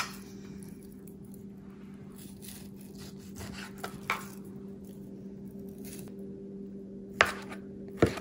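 Chef's knife slicing partly frozen beef thinly on a plastic cutting board. Soft cutting strokes are broken by a few sharp taps of the blade on the board, the strongest about four seconds in and twice near the end. A steady low hum runs underneath.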